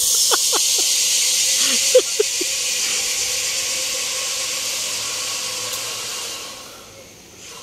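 Zipline trolley pulleys running along the steel cable: a steady high hiss that fades away over the last second or so as the rider moves off. A few brief voice calls are heard in the first two seconds.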